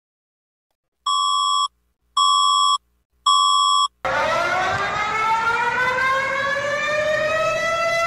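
Three identical electronic beeps, each about two-thirds of a second long. At about four seconds in, a siren-like emergency alert tone starts, a wail that rises slowly in pitch. It is played as the Philippines' emergency alert alarm.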